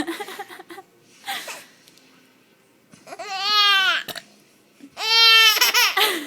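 Baby's high-pitched squealing laughs: a short breathy sound, then two long arching squeals about three and five seconds in.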